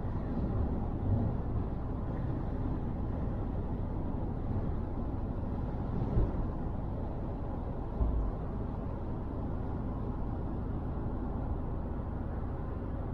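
Steady road and engine noise of a car cruising on a motorway, heard from inside the car, with a few brief low thumps.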